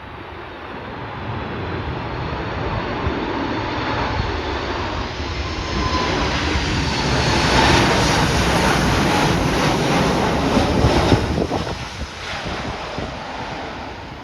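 Jet airliner passing close by, its engine noise building to a peak about eight seconds in and falling away after about eleven, with a faint whine over the rush. Wind buffets the microphone throughout.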